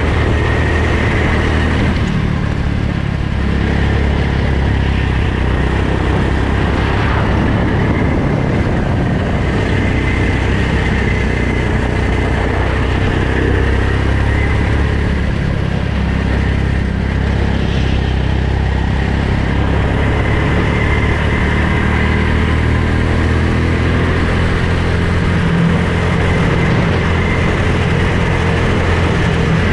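Go-kart engine running steadily at speed, its pitch rising and falling a little, heard from a helmet-mounted camera with rushing wind noise over it.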